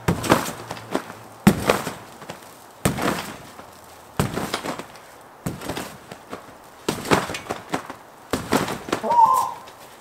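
A person bouncing on a wet, snow-dusted rectangular trampoline: about seven landings on the bed, one roughly every second and a half, each a sharp thump.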